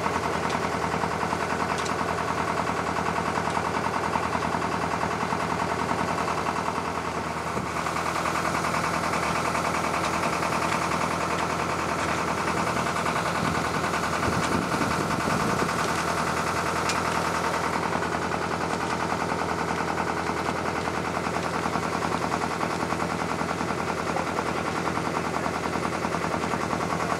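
Sailing yacht's engine running steadily with a rapid, even knocking beat as the boat motors along.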